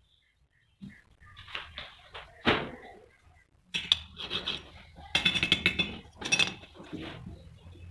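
A flat strip tool scraping rust off a corroded metal pulley in short, irregular strokes. The strokes are sparse at first, then come faster and louder about halfway through.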